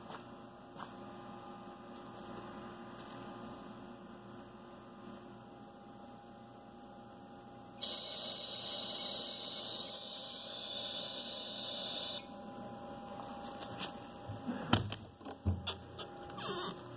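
QSonica Q700 probe sonicator running its probe in a beaker of water: a loud, high-pitched hiss starts abruptly about eight seconds in, lasts about four seconds, then cuts off suddenly. A low steady hum runs underneath, and a few knocks and bumps come near the end.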